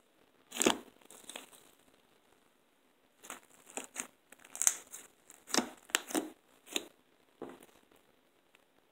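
Homemade slime of gel bath, glue and borax being squished and pulled apart by hand, giving irregular crackling, tearing sounds in short bursts, one a little under a second in and a busy run from about three to seven seconds in.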